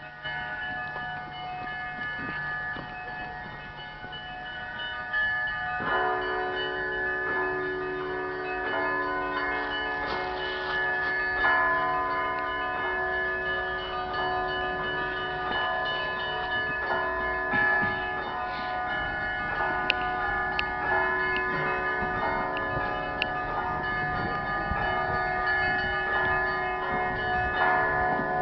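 Russian Orthodox church bells of a cathedral belfry ringing together, many bells of different pitches struck in a continuous ringing pattern. Deeper bells join about six seconds in. It is the ringing that calls people to the evening service.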